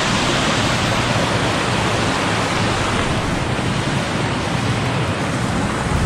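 Reservoir spillover floodwater rushing and splashing over sandstone ledges and driftwood in a steady, even rush.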